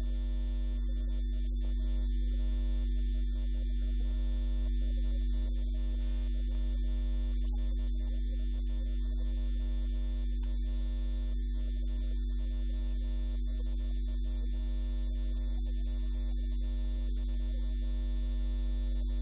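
A steady low electrical hum with several held higher tones above it, unchanging throughout.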